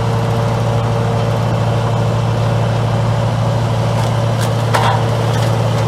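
Heavy wood chipper's engine running at a steady speed, with a few short sharp knocks about four and a half seconds in.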